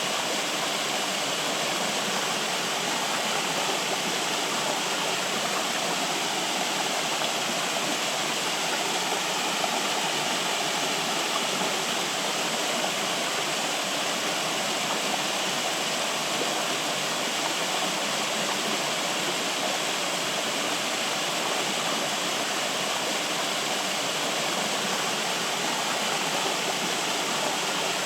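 Flowing water running steadily, a continuous rushing and babbling like a stream.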